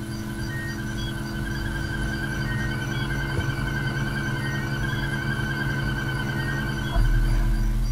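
Electronic science-fiction sound design: a steady layered hum with short high beeps about once a second and a slow warbling tone through the middle. A deeper low rumble comes in near the end.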